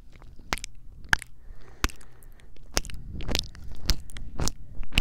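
Close-miked kissing sounds: a string of sharp lip smacks pressed right against a Tascam recorder's microphone, about two a second, louder in the second half.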